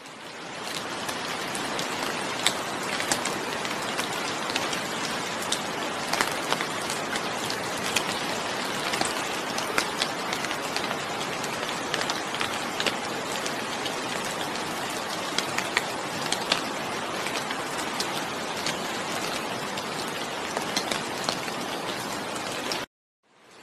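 Steady rain falling, with many sharp individual drops ticking through it. It fades in from silence over the first second or so and cuts off abruptly near the end.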